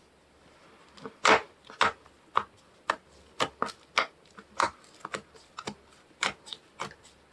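Slime being squeezed and folded by hand, giving sharp sticky clicks and pops about two a second.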